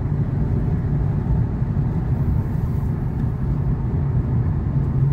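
In-cabin sound of a stage 1-tuned Volkswagen Golf 6 2.0 TDI diesel cruising: a steady low engine drone with road rumble, holding an even pitch and level throughout.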